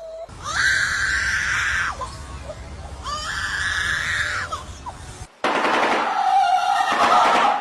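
Harsh, screeching bird calls: two long screeches, then a different rasping call that starts abruptly about five seconds in.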